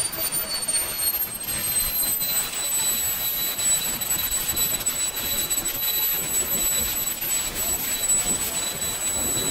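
Swiwin 300 RC model jet turbine running: a steady rush of exhaust noise under a high whine that falls in pitch over the first two seconds as the engine spools down, then holds steady at the lower speed.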